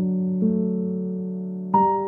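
Slow, soft piano background music: sustained chords that fade slowly, with a new chord about half a second in and a louder one near the end.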